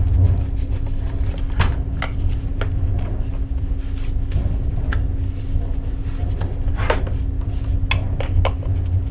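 Hard metal clinks and taps at irregular intervals, like small parts and tools being handled, over a steady low hum.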